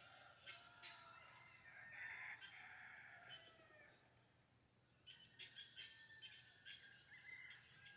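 Faint farm dawn sounds: a rooster crowing once, about two seconds in, among many short chirps from small birds.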